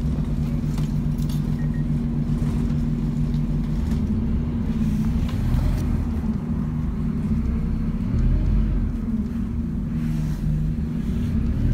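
Scania N270UD double-decker bus's five-cylinder diesel engine running under way, heard from inside the bus with low road rumble. The engine note holds steady at first, then shifts and wanders in pitch from about four seconds in.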